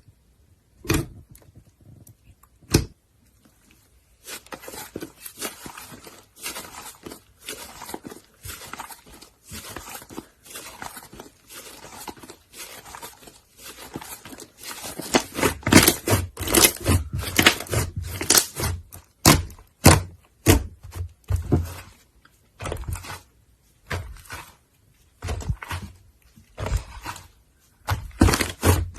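Clay slime being mixed and squished by hand: two separate thunks in the first few seconds, then an irregular run of crackles and pops that grows louder about halfway through.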